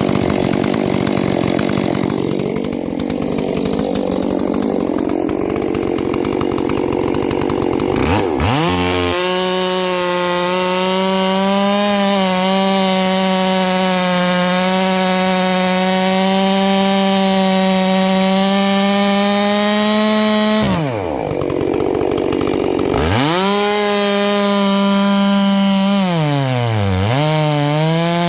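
70cc-class chainsaw running at high revs while cutting through log rounds. The engine pitch drops and picks back up about two-thirds of the way in and again near the end.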